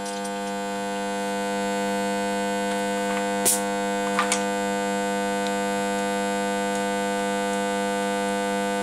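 A steady electrical mains hum, level and unchanging in pitch, with a few light clicks a few seconds in as the compression tester fitting is handled at the spark plug well.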